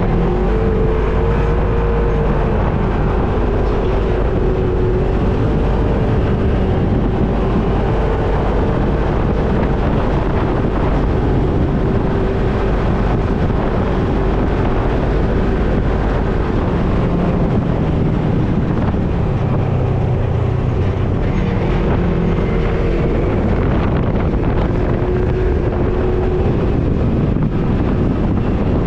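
Off-road vehicle engine running continuously while driving, a loud low rumble whose note rises and falls a little as the throttle changes.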